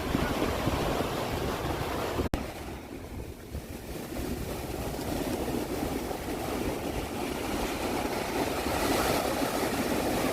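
Sea waves washing and breaking on the shore, with wind rumbling on the microphone. About two seconds in the sound cuts abruptly, then the surf comes back softer and swells louder again toward the end.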